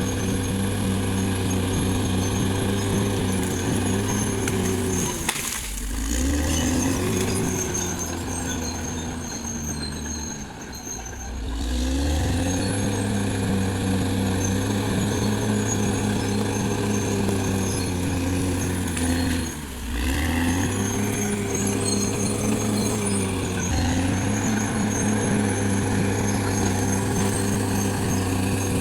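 Caterpillar D6R XL bulldozer's diesel engine running hard while pushing earth. The engine note bogs down and recovers about five seconds in, eases off for a moment around ten seconds, and dips once more near twenty seconds.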